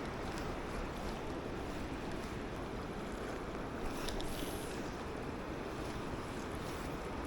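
Steady rushing of a mountain river's flowing water, an even hiss with no breaks, with a brief higher hiss about four seconds in.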